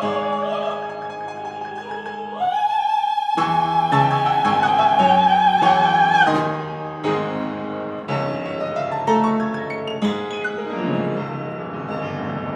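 Operatic singing with piano accompaniment: a voice holds one long high note for about four seconds, then the piano carries on alone with separate chords.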